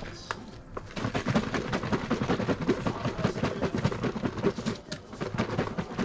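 Water sloshing and rattling inside a lidded plastic food container shaken hard by hand, in quick rhythmic shakes, to loosen an oily film from its inside walls.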